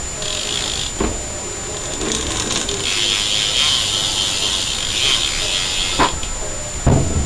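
BMX rear cassette hub freewheeling: the fast buzzing click of its ratchet pawls, in a short spell at the start and a longer one from about three to six seconds in, with a couple of knocks in between.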